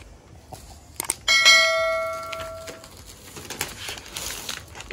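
A bell-like notification chime struck once about a second in, ringing on several clear tones and fading over about a second and a half, with a couple of short clicks just before it. It is the sound effect of a subscribe-button overlay.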